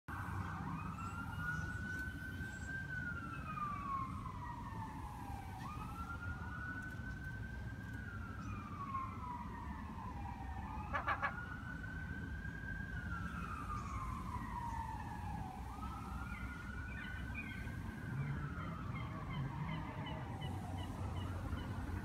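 Emergency vehicle siren in wail mode: four slow cycles, each rising and then falling in pitch over about five seconds. A quick burst of sharp clicks halfway through is the loudest moment, over a steady low rumble.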